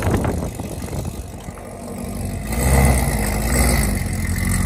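2020 Camaro ZL1's supercharged V8 running through aftermarket headers, idling with a deep exhaust note. A little over halfway it swells into a light rev, the loudest moment, wavering in pitch before settling back.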